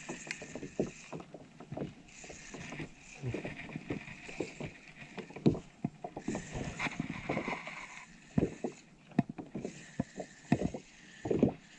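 Water lapping against a plastic kayak hull in patches of splashy hiss, with scattered sharp knocks and clicks from fishing tackle being handled on the kayak.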